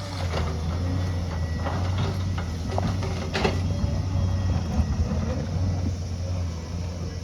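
Heavy diesel earthmoving machine running steadily with a low hum, with a few sharp clanks and knocks of the bucket and rock, the loudest about three seconds in.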